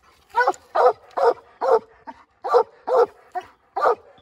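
Young coonhound barking up a tree: a quick run of short barks, about two a second, the hound's tree bark while it stands against the trunk.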